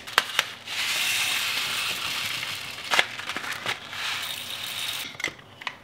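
Yellow mustard seeds poured from a plastic bag into a spice grinder: a steady rattling hiss lasting about four seconds, with a few sharp taps in it.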